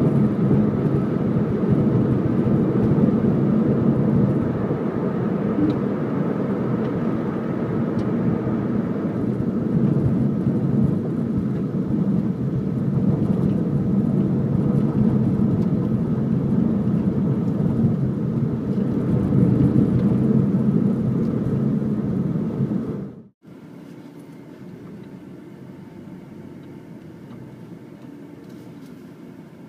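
Porsche 911 Carrera S (997 Gen II) flat-six engine and tyre noise heard from inside the cabin, running at a steady cruise with no revving. About three-quarters of the way through it cuts off abruptly to a much quieter steady low rumble.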